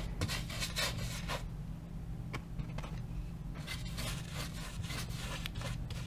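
Paintbrush strokes on a stretched canvas: a series of short, irregular scratchy rubs as acrylic paint is brushed on.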